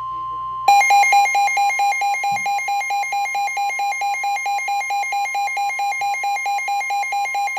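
Weather-radio tornado-warning alert: a steady high alert tone, the NOAA Weather Radio 1050 Hz warning alarm, is joined under a second in by a louder electronic alarm beeping about four times a second. The beeping stops near the end while the steady tone holds.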